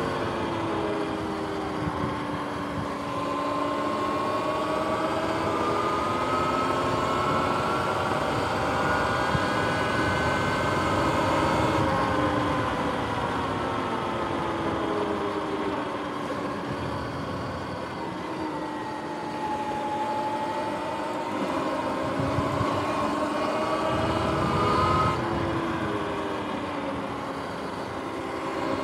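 Sur-Ron X electric dirt bike's motor and primary belt drive whining while riding, the pitch slowly rising and falling with speed.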